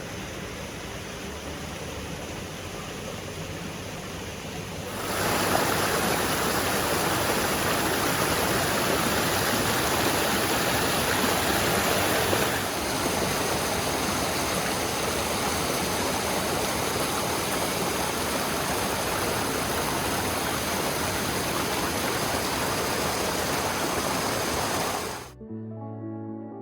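Brook water rushing over rocks: a steady rush that jumps louder about five seconds in and shifts again partway through. Near the end it cuts off abruptly into a brief stretch of steady tones.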